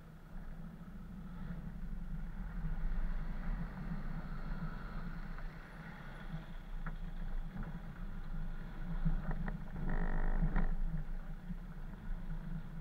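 Off-road vehicles driving slowly along a muddy track: a steady low engine drone with a few sharp knocks and a louder, brief rattling burst about ten seconds in.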